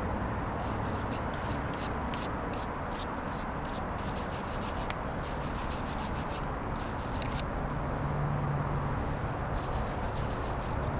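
Flux-core wire welding arc on mild steel pipe, running on DC electrode negative from a 90 amp wire-feed welder: a steady crackling sizzle with rapid irregular pops, and a brief low hum about eight seconds in.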